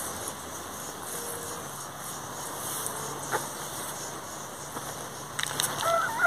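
Steady background hiss, then near the end a rooster begins a long crow.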